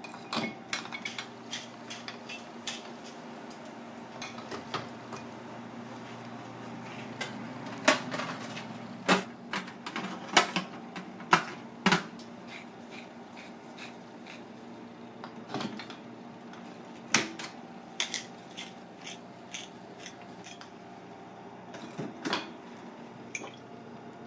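Irregular clinks and knocks of crab shell pieces and a metal utensil against a stainless steel tray, clustered in a busy run around the middle and a few more later, over a steady low hum.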